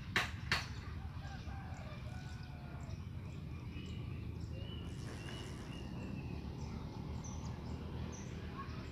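Outdoor ambience of a steady low rumble with faint, scattered bird calls. Two sharp knocks come in the first second, ending an evenly spaced run of knocks.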